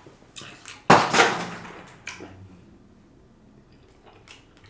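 AirPods falling out of a pocket and clattering onto a hard surface: a sudden clatter about a second in that dies away over about a second, then a smaller knock.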